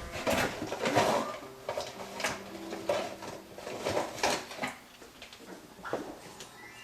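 Plastic K-cup coffee pods and their packaging being handled, with irregular clicks, light clatters and rustling as one pod is picked out.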